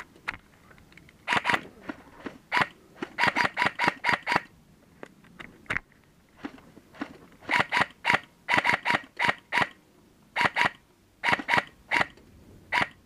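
Airsoft rifles firing single shots in quick strings of two to six, sharp cracks with short pauses between strings.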